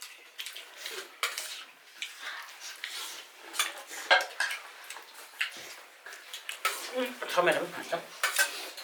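Dishes and eating utensils clinking and scraping at a meal: repeated short clinks and taps at an irregular pace, with faint voices near the end.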